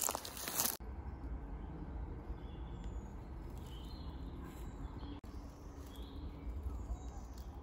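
Bicycle tyres crackling over dry leaf litter and twigs, stopping abruptly under a second in. After that, a low steady rumble with a few faint, short bird chirps.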